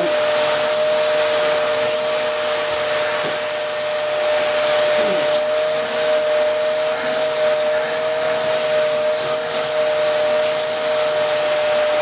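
Canister vacuum cleaner running steadily with an even whine, its hose nozzle being drawn through a St. Bernard's coat to groom out loose hair.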